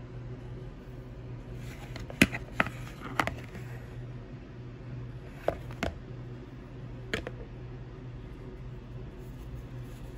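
Steady low room hum, broken by about six sharp clicks and knocks of kitchen handling, a fork and a bowl being handled, in three small groups between about two and seven seconds in.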